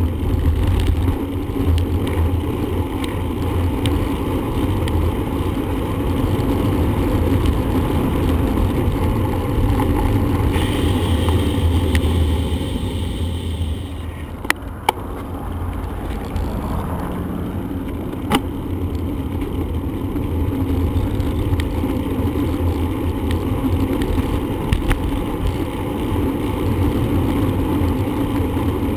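Steady rumble of wind on the microphone and road noise while riding a bicycle. There is a brief high whine a little over a third of the way in, and a few sharp clicks around the middle.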